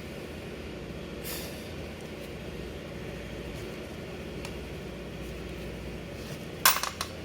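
Steady low workshop hum, with one sharp clack near the end as a part is handled.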